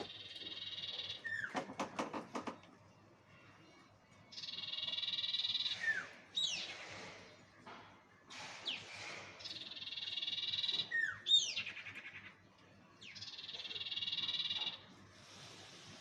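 Bird lure call (suara pikat): high, buzzy calls about every four seconds, each lasting a second and a half. Between them come quick falling whistled notes, with a short rattle early on.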